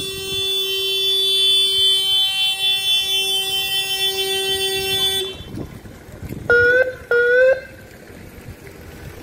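Police car horn held in one long steady blast that stops about five seconds in, then two short, loud siren-like blasts about half a second apart, each with a slight rising start. These are the honks a police convoy sounds as a farewell salute to a fallen officer.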